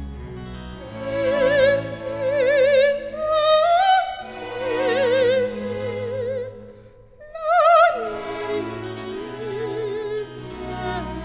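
Background music: a high, soprano-range voice singing long operatic notes with wide vibrato over a classical instrumental accompaniment, breaking off briefly about seven seconds in.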